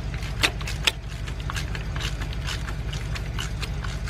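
A socket ratchet clicking and scraping as the spark plugs are worked out of a BMW 328i engine, in irregular clicks, with two sharper ones in the first second. A steady low hum runs underneath.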